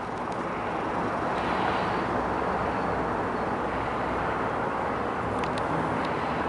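A steady rushing noise, swelling a little over the first second or two, with a few faint clicks.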